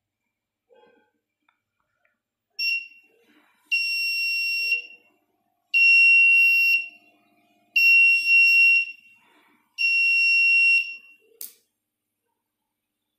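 Piezo buzzer on an Arduino protection board sounding a high, steady electronic beep: one short beep, then four beeps about a second long, each about two seconds apart, as the board's alarm for a low-voltage condition. A sharp click near the end.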